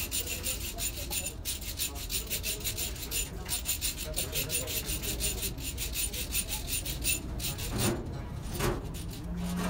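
Quick, even hand-scrubbing strokes on a metal wheel-hub part, with two louder strokes near the end.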